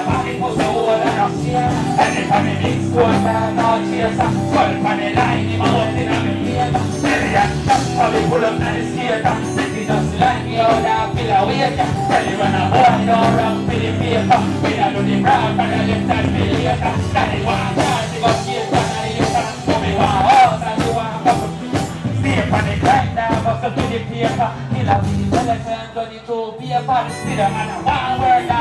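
Live band music with a vocalist performing over it on a microphone. About two seconds before the end the band briefly drops out, then comes back in.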